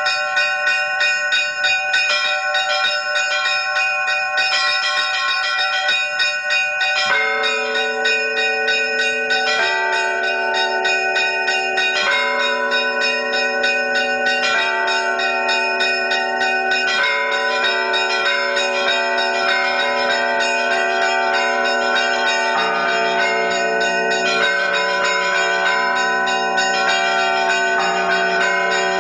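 Church bells ringing: several bells sounding in a repeating pattern with long overlapping rings. A deeper bell joins about seven seconds in, and a still lower tone takes over near the end.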